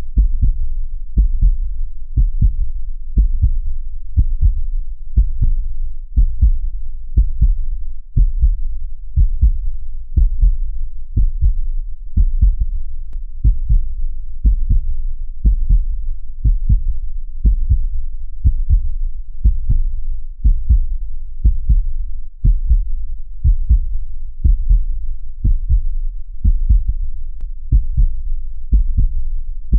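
A heartbeat: steady, evenly paced low thumps in a lub-dub pattern.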